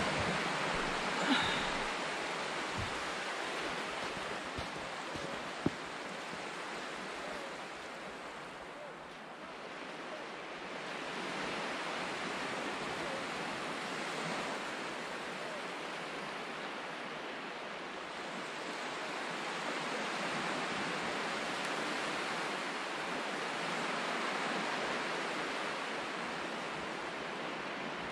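Surf from small waves breaking on the shore: a steady hiss that slowly swells and eases, with a few faint clicks in the first several seconds.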